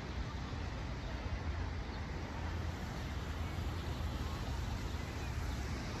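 Wind buffeting a phone's microphone: a steady, fluttering low rumble over an even outdoor hiss.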